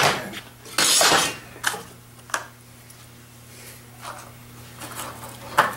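Small metal parts such as a pulley and bearings clinking and knocking on a workbench, a few sharp strikes with a pause in the middle, over a steady low hum.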